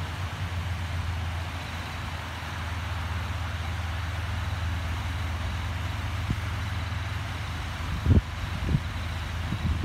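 Steady rush of water spilling over a circular concrete weir into a pond, under a fluttering low rumble of wind on the microphone, with two low thumps near the end.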